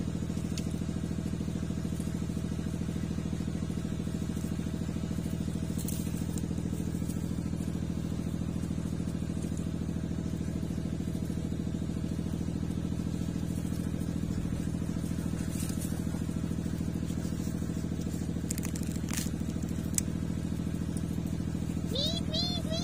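A motor running steadily with an even, unchanging hum, with a few light clicks and rattles over it. A high, warbling squeaky call begins right at the end.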